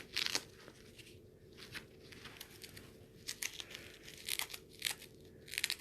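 Scattered crinkling, rustling and clicking of hands handling small items, with short crackles every half second or so and a few louder clusters near the end.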